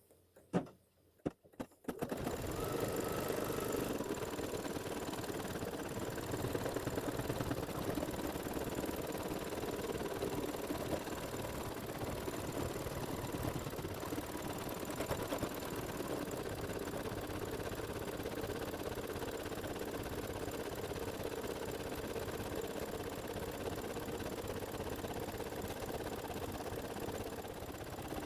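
Embroidery machine starting with a few clicks, then running steadily from about two seconds in as it stitches a satin-stitch edge.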